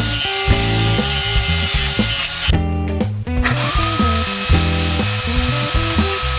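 Electric drill spinning wood on a homemade drill lathe while a tool cuts the turning piece, over background music. The drill noise stops for about a second midway, then a whine rises as the drill spins back up and holds steady.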